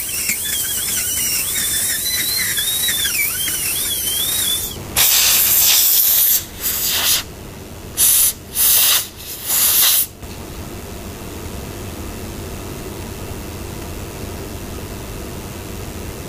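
A dental rotary handpiece running over a steady hiss, its high whine wavering in pitch as the orifice opener works in the canal. From about five seconds in come five short, loud blasts of air hiss within about five seconds, typical of a dental air syringe drying the cavity. After that a lower, even hiss continues.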